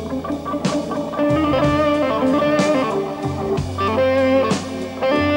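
Slow blues played live on electric guitar, Hammond B3 organ and drums. The electric guitar plays the lead line over held organ chords and a low organ bass note, with a drum stroke about every two seconds.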